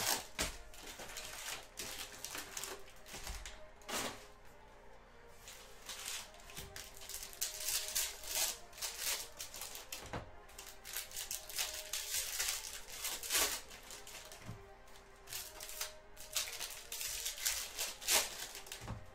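Baseball trading cards being handled and sorted: an irregular run of quick flicks and sliding clicks as the cards go through the hands, over quiet background music.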